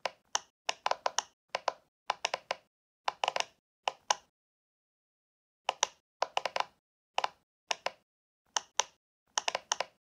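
Irregular series of short, sharp taps, often two or three in quick succession, on what sounds like the same object each time, with a pause of about a second and a half near the middle.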